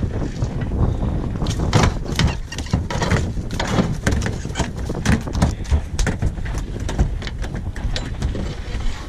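Rapid, irregular knocks and slaps from a freshly landed striped bass flopping in a landing net on a fiberglass boat deck, over wind rumbling on the microphone.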